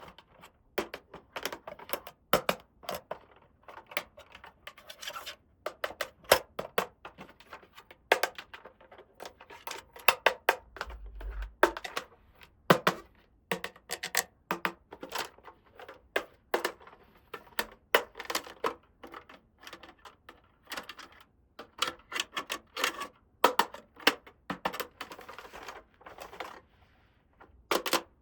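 Small plastic toy parts being handled, snapped together and set down: irregular clicks and taps with short stretches of rustling.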